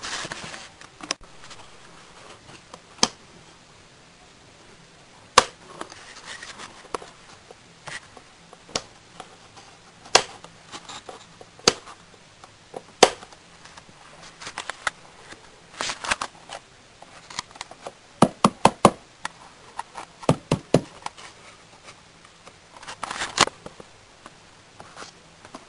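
Irregular light clicks and knocks, spaced a second or more apart, with a quick run of several clicks about two-thirds of the way through.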